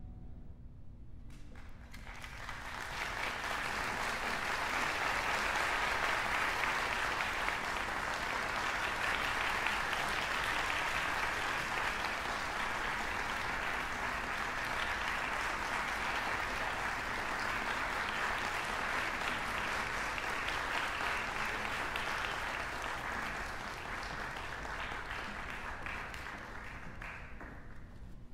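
Audience applauding at the end of a Chinese orchestra piece. The clapping swells in about two seconds in, holds steady, and thins out near the end.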